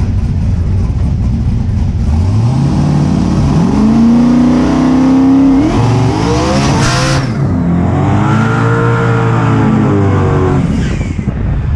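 Car engine under hard acceleration, its pitch climbing twice, with a brief hiss about two-thirds of the way through.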